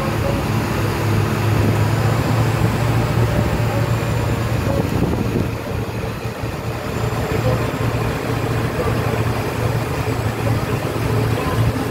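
Steady low drone of a monster truck's engine as it drives along, with rumbling road and wind noise, heard from the open passenger deck.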